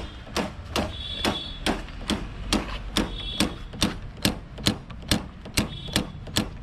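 A motorcycle's hydraulic brake lever being pumped quickly and repeatedly, each stroke giving a sharp click, a little more than two a second. The lever is being worked to push fluid through and bleed air from a newly fitted hand-brake line.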